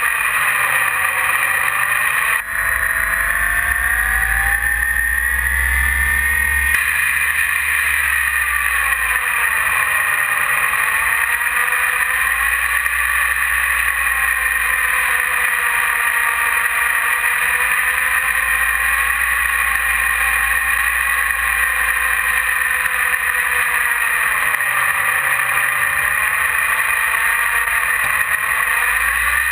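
E-flite 480 1020 kV brushless outrunner motor and propeller whining on a Mini Ultra Stick RC plane in flight, heard from onboard, with wind rumble on the microphone. The pitch wavers up and down with the throttle, climbing for a few seconds about two seconds in, then dropping back.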